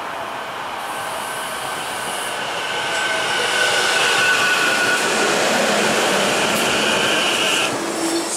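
SEPTA electric commuter train passing close by along the platform. Its running noise builds to its loudest about four seconds in, with a steady high whine that cuts off near the end.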